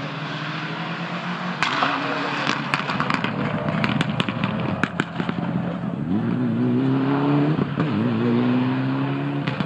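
Rally car engine under hard acceleration, with a run of sharp crackles and pops in the first half. The revs climb, dip briefly at a gear change about three quarters of the way through, and climb again.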